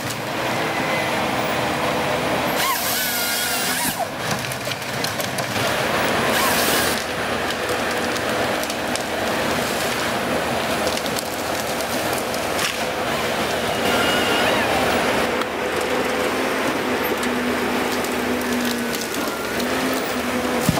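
Wheeled forestry harvester at work: its engine and hydraulics run steadily while the harvester head feeds, delims and saws through spruce stems. Two short, louder bursts of cutting noise come about three seconds and six and a half seconds in.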